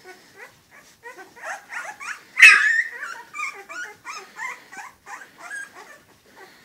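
A litter of very young puppies whimpering and squeaking over one another in many short, overlapping cries, with one louder squeal about two and a half seconds in.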